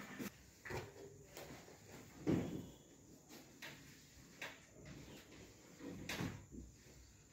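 Scattered short knocks and thumps during a chiropractic full-body adjustment, about eight in all, the loudest a little over two seconds in.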